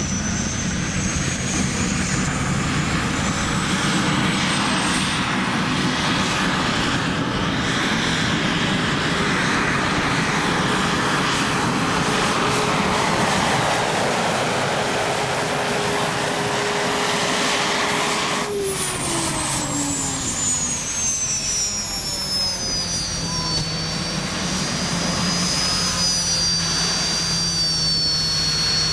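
Modified pulling tractor under full power during a pull: dense engine noise with a high whine that climbs slowly. About two-thirds of the way through it is throttled back, the noise drops off and the whine glides down, settling into a steadier, lower idle.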